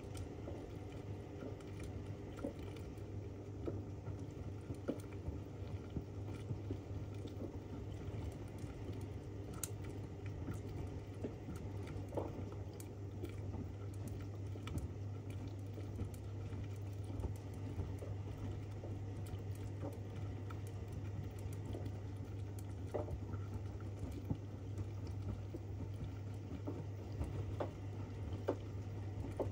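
Zanussi ZWF16581W front-loading washing machine in its 95° cottons main wash: the drum turns and tumbles wet laundry through the water over a steady low hum, with scattered small clicks and taps.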